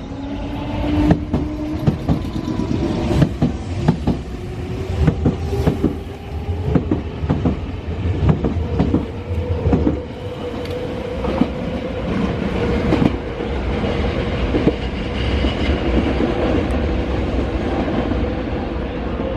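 Nankai electric train running through the station: wheels clacking over rail joints and points, dense for the first dozen or so seconds and then thinning, under a steady traction-motor whine that rises a little in pitch at the start.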